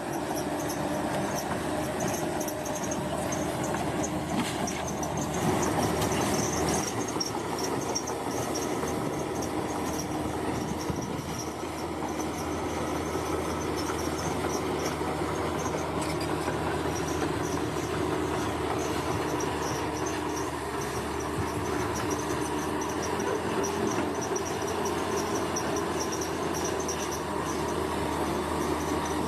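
Diesel engine of a heavy earthmoving machine such as a bulldozer running steadily, with a rhythmic mechanical clatter. Insects chirp rapidly and continuously above it in a high band.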